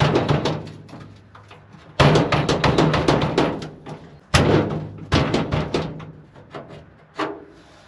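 Rusted steel cab door of an old military truck rattling and banging in quick runs of knocks as it is yanked and worked from the inside; the door is rusted shut and will not open.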